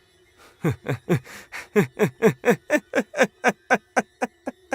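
A person laughing in a long, rhythmic string of short 'ha' syllables, about four a second, each falling in pitch. The laugh starts about half a second in.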